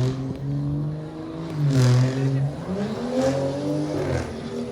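A motor vehicle's engine running and accelerating, its pitch holding steady, dipping, then climbing about two and a half seconds in before falling away near the end.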